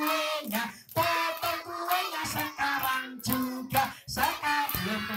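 Children's voices singing a song together over music.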